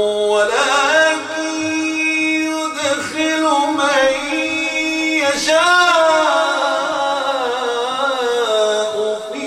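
A man reciting the Quran in a melodic, sung style. He holds long ornamented notes across several phrases, with brief pauses between them.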